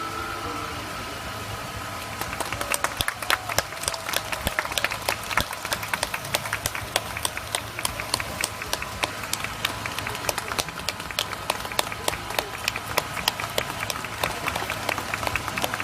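Audience applauding, starting about two and a half seconds in as the music fades out.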